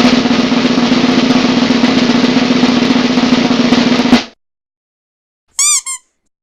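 Snare drum roll, a sound effect, held for about four seconds and ending suddenly on a final hit. About a second and a half later comes a short two-note pitched sound whose pitch wavers.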